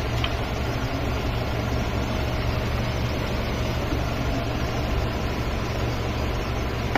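A car's petrol engine idling steadily, with an even low hum that neither rises nor falls.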